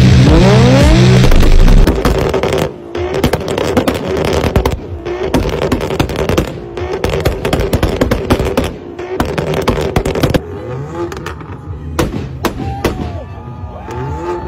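Tuned car exhausts at full volume. A very loud, distorted rev rising in pitch opens it. Then an engine holds a steady drone under rapid pops and bangs, with further revs rising and falling near the end.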